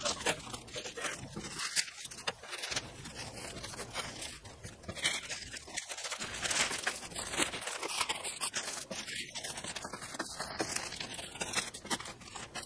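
Thin plastic masking sheeting crinkling and rustling as it is pressed and smoothed by hand onto masking tape, in a dense run of irregular crackles.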